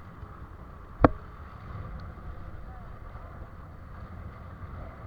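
One sharp, loud click about a second in, over a steady noisy background.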